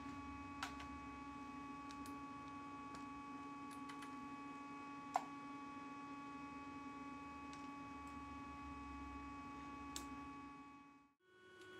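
Steady electrical hum with several fixed tones, with a few light clicks and taps of metal parts being handled, the sharpest about five seconds in. The hum dies away just before the end.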